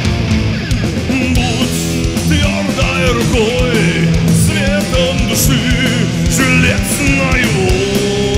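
Heavy metal band playing live: distorted guitars, bass and drums with repeated cymbal crashes, and a lead line that bends and wavers in pitch over them.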